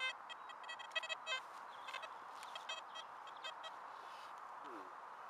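Metal detector's audio giving short, choppy, warbling tone bursts as the search coil is swept over a dug hole, mostly in the first second and a half, then fainter blips. The target proves to be a bit of iron.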